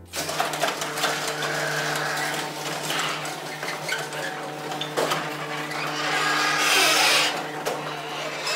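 Electric garage door opener running, its motor humming steadily as it raises a sectional garage door, with a few clicks and knocks from the door along the way.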